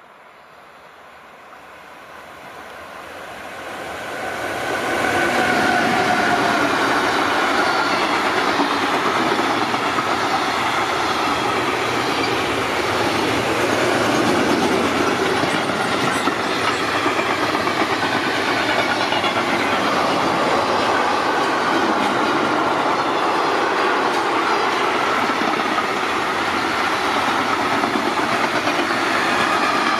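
A train passing at speed on the rails: the sound swells as it approaches over the first five seconds, then holds as a long, steady loud rush of wheels on track. Faint tones slowly fall in pitch within the rush.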